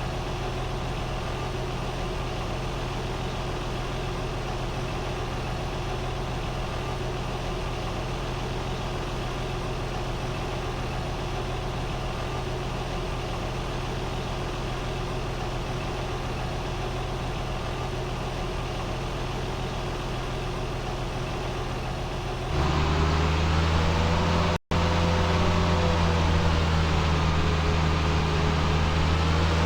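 Harvest machinery engine running steadily. Over twenty seconds in, the sound switches abruptly to a louder, lower drone with a wavering whine above it, broken once by a split-second dropout.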